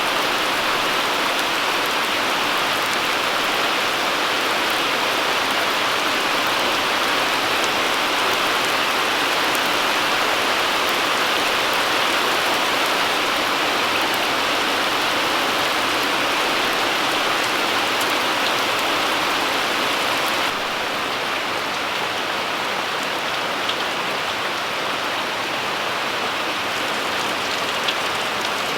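Steady rain falling, an even hiss with no other sounds standing out; it drops slightly in level about two-thirds of the way through.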